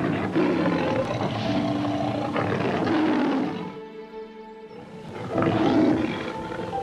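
Lion roaring twice, over soft background piano music: one long roar, then a shorter one about five seconds in.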